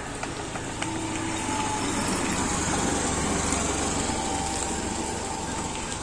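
A motor vehicle's engine going past, a low rumble that swells to its loudest about three seconds in and then eases off.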